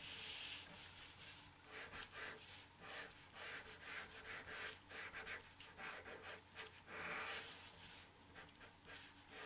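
Pencil sketching on paper: a faint, irregular run of short scratchy strokes as fur lines are drawn, with a longer stroke at the start and another about seven seconds in.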